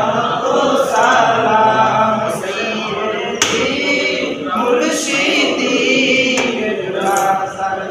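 A group of men singing a devotional song together in unison, unaccompanied by instruments.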